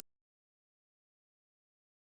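Silence: no sound at all, the backing song having cut off.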